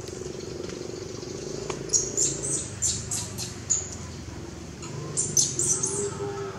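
Short, high-pitched chirping calls in two clusters, about two seconds in and again about five seconds in, over a steady low drone.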